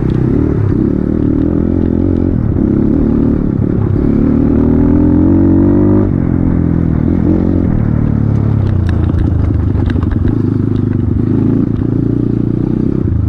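Off-road motorcycle engine running, rising in pitch as it revs from about four to six seconds in, then dropping back sharply, with scattered knocks and clatter in the second half.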